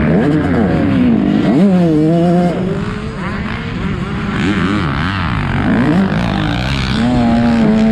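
Several motocross bikes' engines revving hard and dropping back as they shift, the pitch climbing and falling again and again with more than one engine heard at once. One engine holds a steadier pitch near the end.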